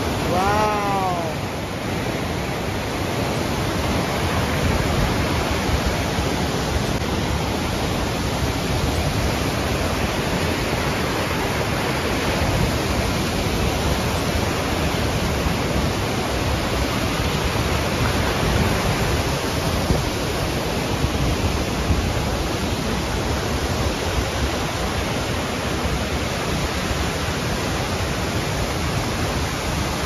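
White water of a mountain stream rushing over boulders, a steady, dense rush of noise.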